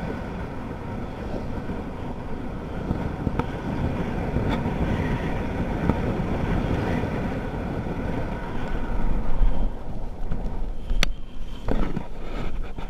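Wind rushing over the camera microphone during parachute canopy flight on final approach. About ten seconds in it turns uneven, with knocks and a sharp click near the end, as the skydiver touches down on the grass.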